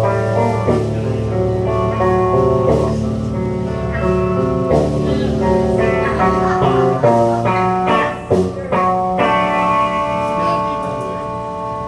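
Amplified electric guitar played live, strumming chords to open a song; about nine seconds in, a chord is left ringing and slowly fades.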